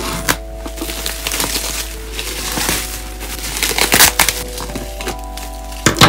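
Plastic bubble wrap crinkling and rustling as it is pulled off a boxed keyboard, with the loudest crackles about two thirds of the way through. Soft background music plays under it.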